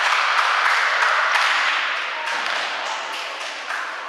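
Spectators cheering and clapping in an indoor basketball hall, with sharp claps and knocks scattered through; the cheer dies down over the second half.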